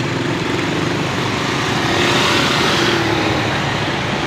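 Motorcycle engine running steadily while riding, with road and wind noise rushing past; it grows a little louder about two seconds in.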